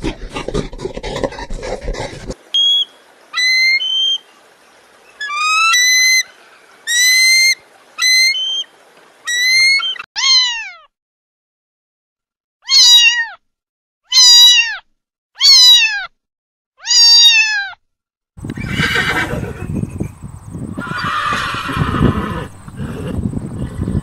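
Domestic cat meowing about a dozen times: first a run of short, higher meows, then four long, loud meows that each fall in pitch. It is opened by the end of a gorilla's rough, low vocalising and followed, from about 18 seconds in, by a horse's noisy vocalising.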